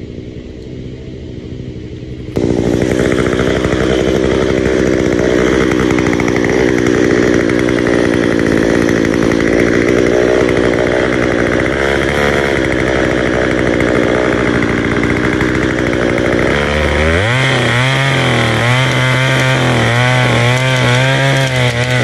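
Gas chainsaw cutting into a standing tree trunk at full throttle. After a quieter first two seconds it comes in loud and holds steady. In the last five seconds its pitch rises and falls repeatedly.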